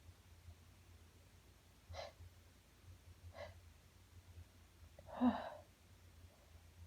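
A woman's sneezing fit: two short, sharp sounds about two and three and a half seconds in, then a louder, voiced sneeze about five seconds in.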